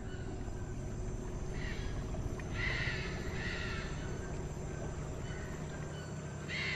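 Harsh bird calls, in short clusters of two or three, about two to four seconds in and again near the end, over a low steady background hum.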